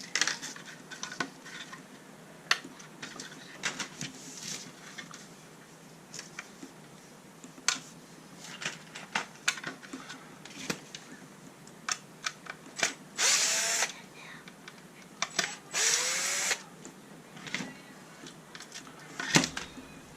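Cordless powered screwdriver running in two short bursts, each under a second, its pitch rising as it spins up, about two and a half seconds apart past the middle. Scattered clicks and clatter of small plastic RC chassis parts and screws being handled run through the rest.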